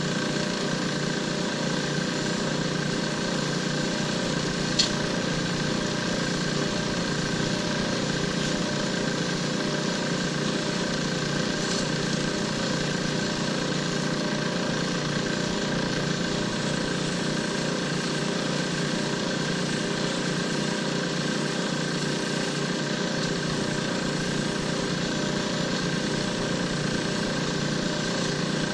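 A lathe's motor running steadily, with a single sharp click about five seconds in.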